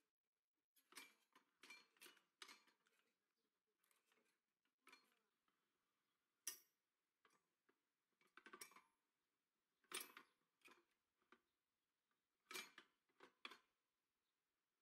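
Faint, irregular metallic clicks and clinks of the homemade mini tractor's steel rear hitch linkage being raised and lowered, in small clusters with one sharper click about six and a half seconds in.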